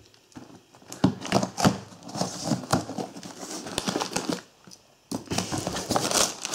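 Pocket knife slitting packing tape on a cardboard box, with scraping and rustling of the cardboard flaps, then crinkling of the newspaper packing from about five seconds in.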